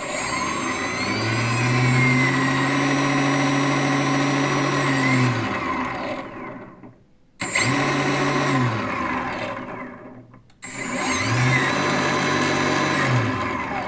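A 4250 560 kV brushless motor spun up three times, one long run and then two shorter ones. Each run rises in pitch, holds, and winds down. It runs with a whine over a very bad sound, the sign of damaged ball bearings.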